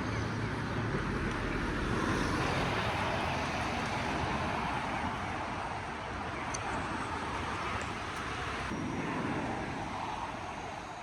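City road traffic noise: a steady wash of cars passing along the street, easing slightly near the end.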